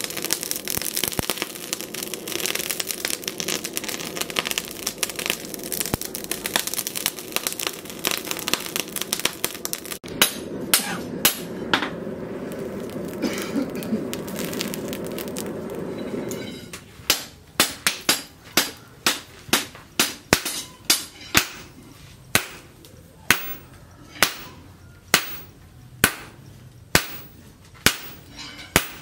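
Charcoal forge fire crackling, with a steady rushing noise from about ten seconds in that stops suddenly a few seconds later. Then a hand hammer strikes the glowing leaf-spring steel on a steel anvil, about two sharp blows a second.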